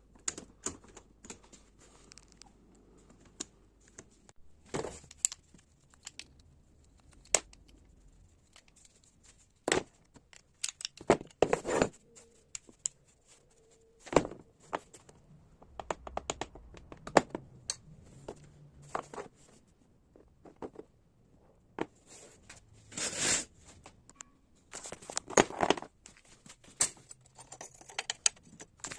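Irregular clicks, knocks and short scrapes of hand work on a PVC window latch, small hard parts and tools being handled, with a few longer scraping noises.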